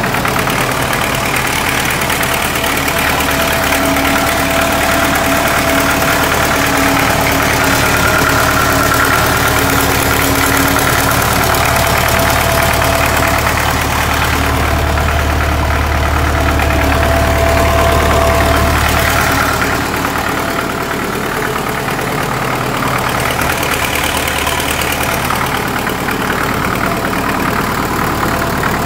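Belarus MTZ-52 tractor's four-cylinder diesel engine idling steadily while still cold from a start below freezing. It runs a little louder for a few seconds past the middle, then settles back.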